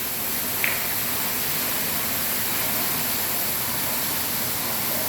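Large indoor waterfall on a cruise ship, falling water making a steady, even rushing noise.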